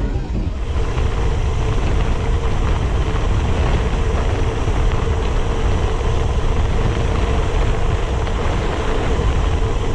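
Wind rushing and buffeting over the microphone of a bicycle moving at speed, mixed with the flapping of a rider's loose, billowing jacket, which the rider calls noisy. It builds up in the first second and then runs on steadily.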